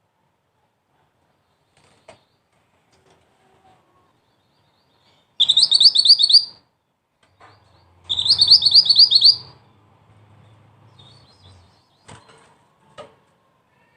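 Mantenan, a small black-and-red flowerpecker, giving two quick bursts of sharp, high chirps, each a rapid run of about half a dozen notes. The first comes about halfway in and the second a second and a half later.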